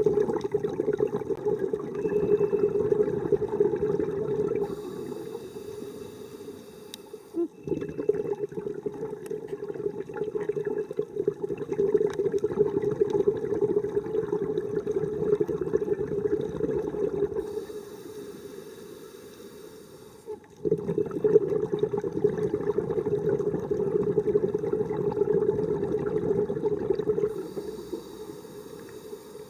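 Scuba diver breathing through a regulator underwater: long, loud bubbling exhales alternate with shorter, quieter hissing inhales, about three breaths in all.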